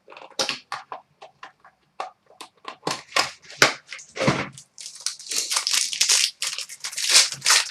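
A pack of Upper Deck hockey cards being torn open by hand: wrapper crinkling and crackling in short sharp bursts, then a denser stretch of tearing and rustling from about five seconds in.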